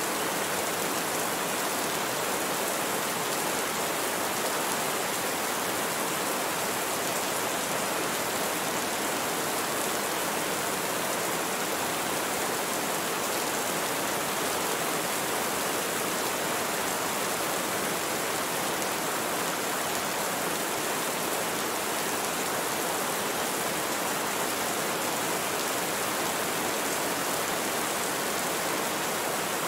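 Rain falling steadily, an even hiss with no single drops or thunder standing out.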